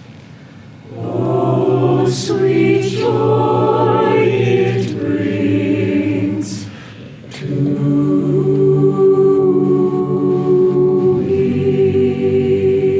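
A choir singing, in two long held phrases with a brief break a little past halfway.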